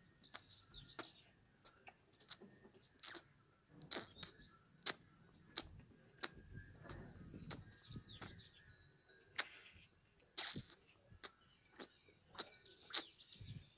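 Calf suckling at its mother's teat: sharp, wet sucking and smacking clicks, irregular, about one or two a second. Birds chirp faintly behind it.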